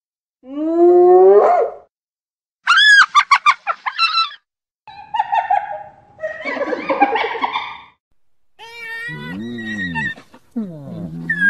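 Spotted hyenas calling: a rising call about half a second in, then a quick run of high-pitched cackling giggle notes, followed by rougher, noisier calls and wavering, up-and-down calls near the end.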